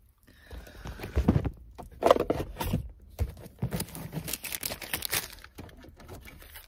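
Rubbish being grabbed and gathered by hand inside a car cabin: irregular crinkling and rustling with short knocks and scrapes, busiest in the first half.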